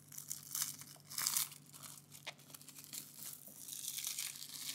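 Irregular crinkling and rustling of something being handled close to the microphone, over a faint low steady hum.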